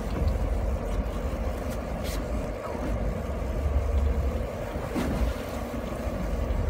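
Fishing boat's engine running steadily, a low rumble with a hum over it.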